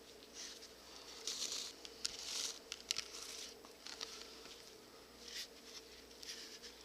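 Hand-sewing leather: irregular scratchy rustles as needle and thread are pulled through the leather and the pieces are handled, with a few small clicks, loudest in the middle.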